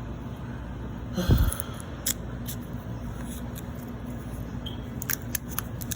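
Handling a plastic snack package of Reese's Oreos: one dull thump about a second in, then sharp crinkling clicks of the wrapper near the end, over a steady low hum.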